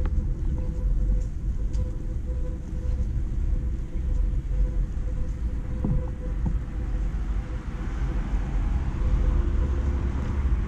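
Street traffic rumble, low and steady, with a thin continuous hum above it.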